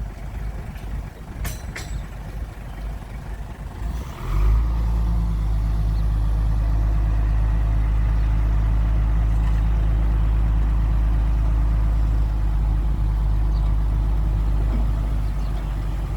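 Heavy diesel engine of earthmoving machinery, running unevenly with a couple of sharp clicks about a second and a half in. About four seconds in it jumps to a loud, steady, deep-humming run at higher speed.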